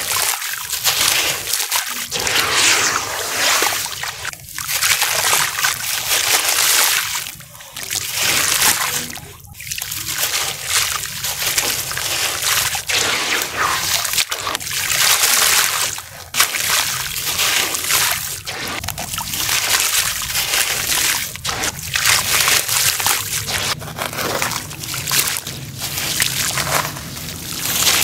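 Chunks of dry dirt crumbled by hand into a tub of water: crumbs pattering and splashing into the water, with sloshing as the hands work. It swells and eases with each handful, with a few short lulls.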